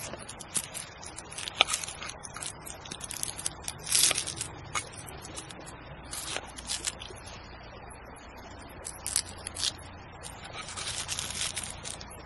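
Irregular scraping and rustling with scattered sharp clicks, loudest about four seconds in and again in a longer run near the end.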